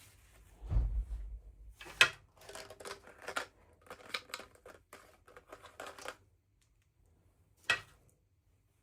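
Packaging handled by hand during an unboxing: a low thump, then a sharp click and a few seconds of crinkling and clicking, with one last click near the end.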